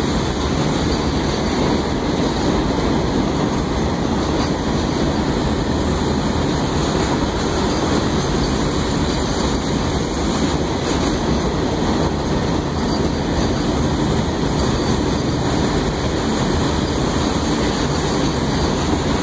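Indian Railways BOXN open freight wagons rolling past on the adjacent track: a steady, loud noise of steel wheels on rail that keeps an even level throughout.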